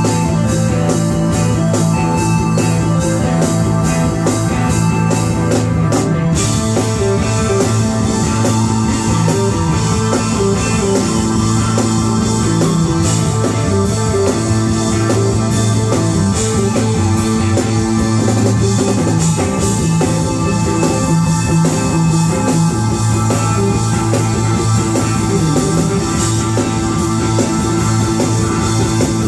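Live band playing an instrumental groove, electric guitar over a drum kit.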